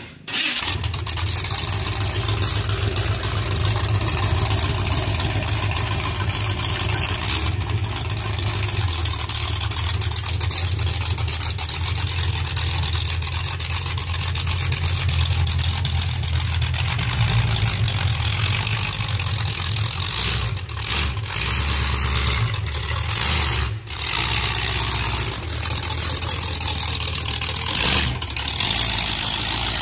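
A demolition derby car's engine fires up a fraction of a second in, then runs steadily as the car is driven, with a few brief dips in level near the end.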